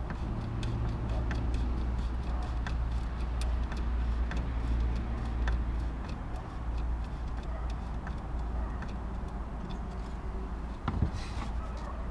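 A hand screwdriver driving a screw into a wooden frame joint, with light clicks a few times a second, over a steady low rumble. A single louder knock about eleven seconds in as the wooden frame is handled.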